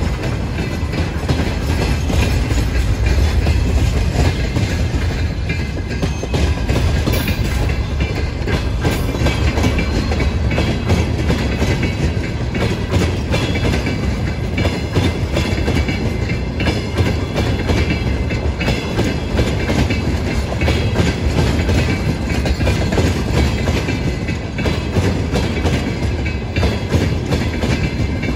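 Freight train rolling past, its wagons' wheels clacking steadily and continuously over the rail joints.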